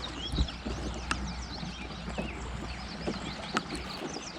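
Small birds chirping in quick, repeated short calls, with a few sharp knocks and clicks from the boat and a low wind rumble on the microphone that dies away near the end.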